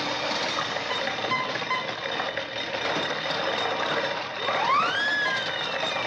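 Sound effects on an early film soundtrack: a dense, hissy mechanical clatter, then about four seconds in a whistle slides steeply up and falls away slowly.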